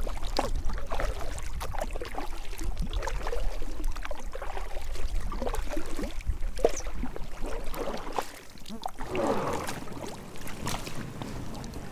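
Kayak paddle strokes splashing in the water, with irregular small splashes and drips against the hull over a low rumble that eases off about nine seconds in.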